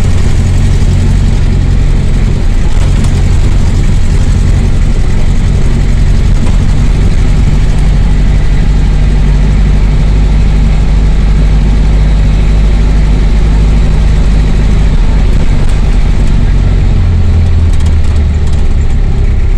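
A motor vehicle's engine running steadily and loudly, heard from on board while travelling along a dirt road.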